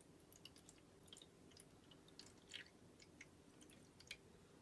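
Near silence with a scatter of faint, short clicks and ticks, about a dozen spread unevenly.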